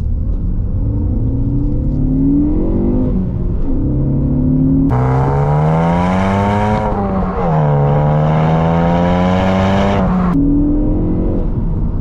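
A Ford Focus ST3's engine, heard from inside the cabin, accelerating hard through the gears. Its note rises in pitch in each gear and drops at each of several upshifts. It is loudest and harshest from about five seconds in until the throttle is eased about ten seconds in.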